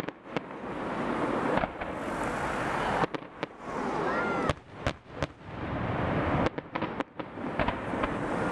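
Fireworks display finale: a rapid, irregular string of sharp bangs and crackles from bursting shells over a constant rushing noise, with the bangs coming thickest in the middle of the stretch.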